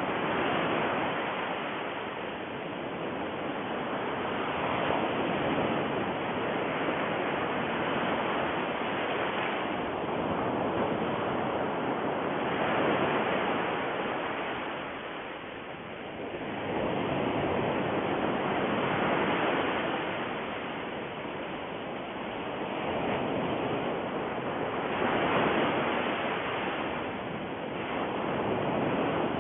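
Steady rushing noise, like surf, that swells and ebbs every several seconds.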